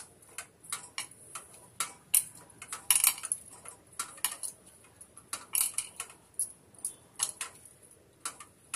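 Hands kneading stiff wheat-and-coconut-milk dough in a bowl, making irregular light clicks and taps, about two to three a second, with a louder cluster about three seconds in.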